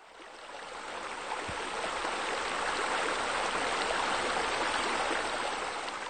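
Running water, a steady rushing sound like a flowing stream, that fades in over about a second and begins to fade out near the end.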